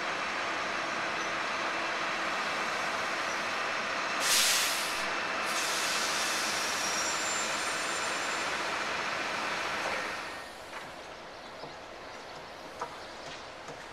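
Steady running noise of a train moving through a station, with a short loud blast of air hiss about four seconds in, typical of train air brakes. The noise drops away about ten seconds in to a quieter background with a few light clicks.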